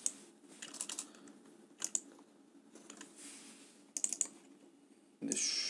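Computer keyboard keystrokes in a few short bursts separated by pauses.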